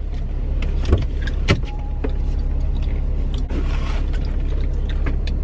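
Car engine running with a steady low rumble, heard from inside the cabin, with two short knocks about a second and a second and a half in.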